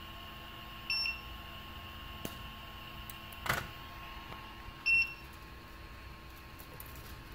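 Prusa i3 MK2S 3D printer giving a short high beep twice, about four seconds apart: its alert that the print is paused for a filament change. A brief snap sounds between the beeps, over a faint steady hum.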